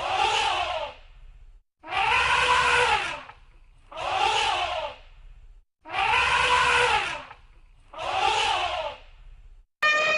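Elephant trumpeting: five harsh calls about two seconds apart, longer and shorter in turn, each rising then falling in pitch. Near the end a steadier, more even trumpet call begins.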